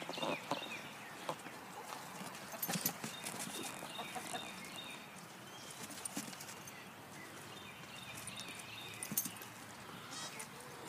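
Irregular scuffling and clicking of animals moving about on the ground, with short high chirping calls from poultry repeating through it.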